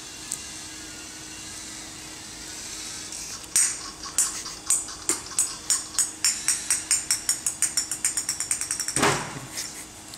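A small ball dropped onto a hard floor, bouncing: sharp taps starting about three and a half seconds in, coming faster and fainter until they run together, followed by a short louder noise about nine seconds in.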